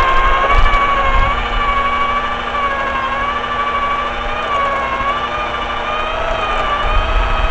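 Electric drill running steadily under load as it cranks a tower winch, a motor whine whose pitch wavers slightly as the load changes.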